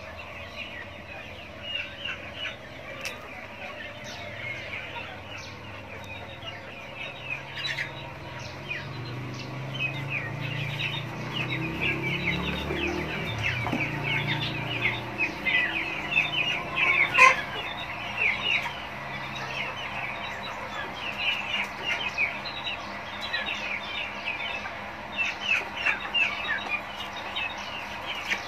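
A pen crowded with young village chickens clucking and peeping, many short calls overlapping, with one louder squawk about two-thirds of the way through.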